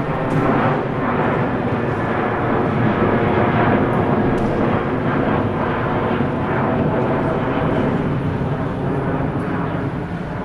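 Airliner jet engines running loud and steady, a dense roar with faint steady tones in it, easing slightly near the end.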